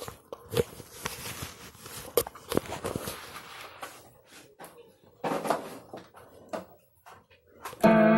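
Rustling and handling noise with scattered clicks and knocks. Near the end a loud, sustained, distorted guitar-like synthesizer sound comes in suddenly.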